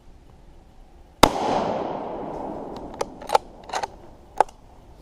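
A distant rifle shot, one sharp crack followed by a long rolling echo that fades over about two seconds. A few short clicks or knocks follow near the end.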